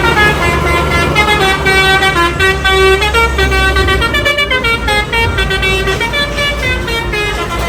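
Telolet bus horn, a set of musical air horns, playing a melody of notes that change every fraction of a second, several tones sounding together, over the low rumble of the bus engine.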